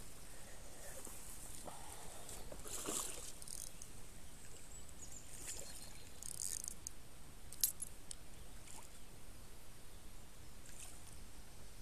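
A hooked fish splashing and swirling at the surface of the water close to the bank, in short irregular bursts. A single sharp click comes about two thirds of the way through.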